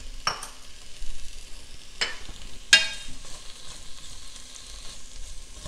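Sliced red onions sizzling in hot oil in a nonstick pot, just added to the heated oil, while a wooden spatula stirs them. The spatula knocks sharply against the pot three times, loudest a little under three seconds in.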